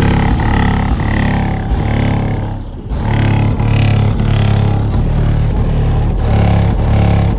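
Car audio system playing loud, bass-heavy music through the newly installed subwoofers and amplifiers, with long, deep bass notes that change every second or so and a short break about three seconds in. It is the system being test-played after the install.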